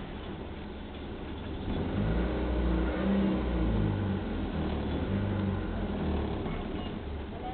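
Outrigger passenger boat's engine running, its low rumble swelling about two seconds in as it revs and staying louder before easing slightly near the end.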